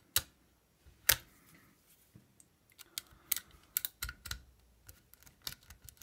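Lock pick working the pin tumblers of an old Eagle mailbox lock held under tension: irregular sharp metallic clicks. Two loud clicks come in the first second or so, then a run of lighter clicks and ticks.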